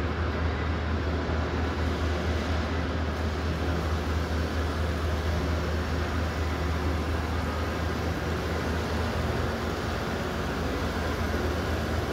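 Water flowing and pouring over a soaked silk carpet during a wash, a steady rushing noise, over a constant low machine hum; the hum shifts in tone about nine seconds in.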